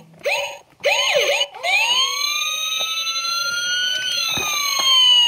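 Electronic sound effects: a few short upward-sweeping tones, then several overlapping tones that glide slowly up and down like a siren.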